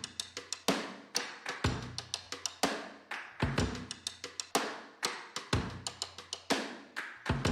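Background music: an instrumental groove with drums and percussion, quick regular hits and a low thump about every two seconds, without vocals.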